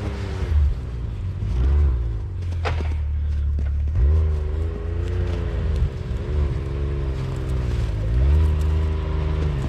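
Side-by-side engine running under load while the machine is stuck, its pitch rising and falling several times as the throttle is worked, over a heavy low rumble. A sharp knock about two and a half seconds in.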